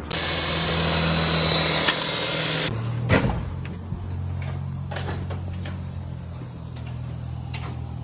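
Power drill running for about two and a half seconds, then stopping abruptly. A sharp knock follows, then a low steady hum with a few light clicks.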